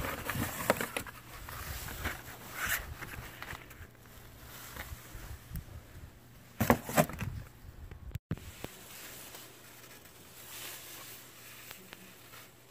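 Rustling and tapping as a cardboard parts box and a boxed drive belt are handled, with a few sharper knocks, the loudest a little past halfway. After a brief break the background turns quieter and steady.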